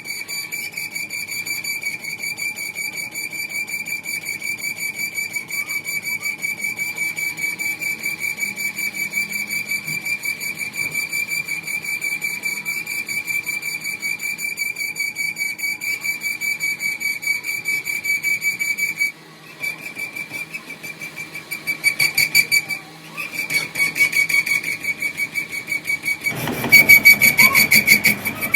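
High-pitched steady squeal of metal being machined: one tone with overtones and a fast flutter. It breaks off about two-thirds of the way through and returns in short spells. Near the end a loud rasping scrape joins it.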